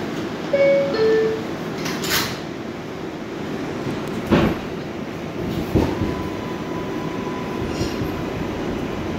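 Interior of an R142A subway car: a two-note descending chime plays about half a second in, then the car rumbles as it pulls out of the station. Sharp knocks come about two, four and six seconds in, and a steady high tone joins from about six seconds.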